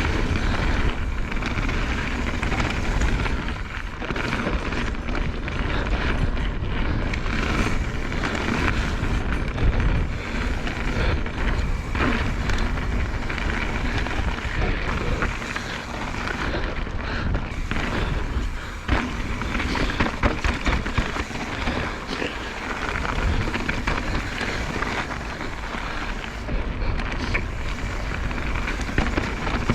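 Mountain bike riding fast down a twisty dirt trail: tyres running over dirt and roots, with frequent clicks and knocks of the bike rattling over bumps, and wind rumbling on the camera microphone.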